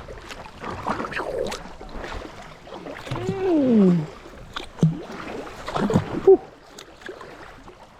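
Kayak moving through creek water: paddle splashes with a few sharp knocks, and a long falling vocal exclamation about three seconds in.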